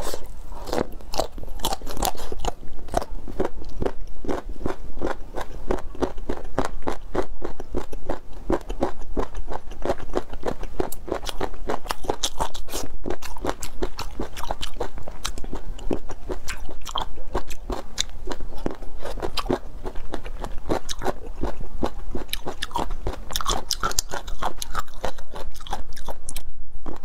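A person chewing and biting crunchy cartilage ("triangle bone") close to the microphone: a dense, steady run of crisp crunches with hardly a pause.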